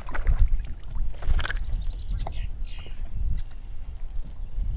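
Hooked fish splashing at the water's surface beside the boat, with a couple of splashes in the first second and a half, over a steady low wind rumble on the microphone.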